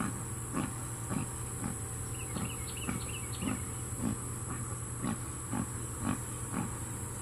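Labrador retriever swimming, huffing in a steady rhythm of about two breaths a second as it paddles.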